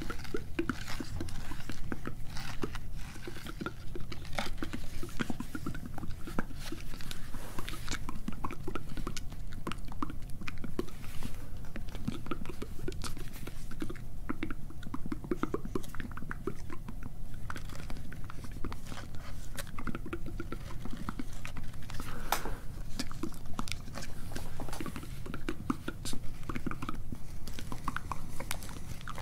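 Close-miked inaudible ASMR whispering with wet mouth sounds: a continuous run of small clicks and crackles, with no clear words.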